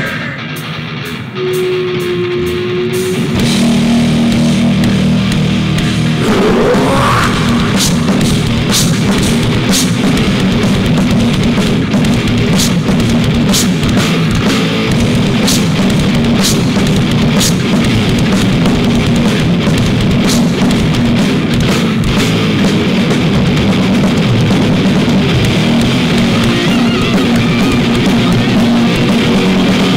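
Live rock band playing an instrumental passage on electric guitars, bass and drum kit. It opens quieter with a held note, the full band comes in loud about three seconds in, a rising glide follows around six seconds, and then it runs on with steady drum hits.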